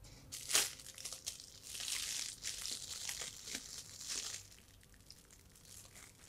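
Shiny metallic foil gift wrap crinkling in the hands as a small present is unwrapped. The rustle is busiest for the first four and a half seconds, then goes on fainter.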